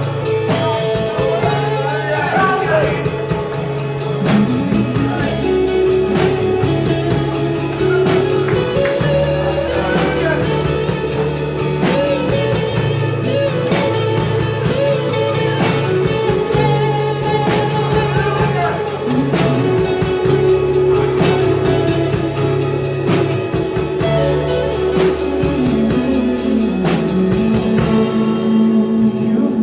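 Live church worship band playing a song: voices singing over electric guitar, bass and drum kit. Near the end the drums stop, leaving a held chord.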